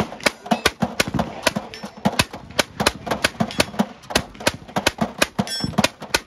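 Replica M1862 .58-calibre Gatling gun firing as its crank is turned by hand: a steady stream of shots, about five a second.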